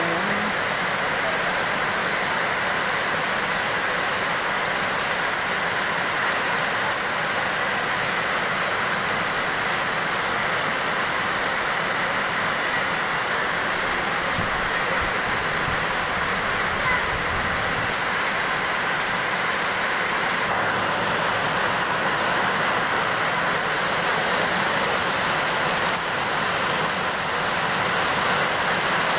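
Heavy rain pouring steadily, a dense even hiss.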